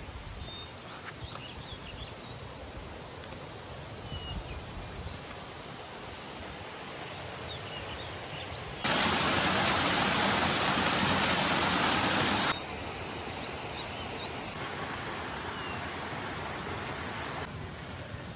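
Steady rushing outdoor ambience with a few faint bird chirps. About nine seconds in, a much louder rushing noise cuts in abruptly, holds for about four seconds, then cuts out just as abruptly.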